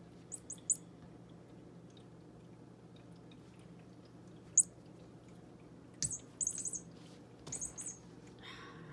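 Short, high-pitched bird-like chirps in quick groups of two or three: one group at the start, a single louder chirp about halfway through, and two more groups near the end.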